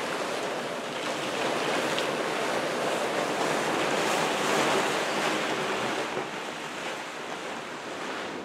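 A large silver plastic tarp rustling as it is dragged off a travel trailer's roof: an even rushing noise that grows to its loudest around the middle and eases near the end.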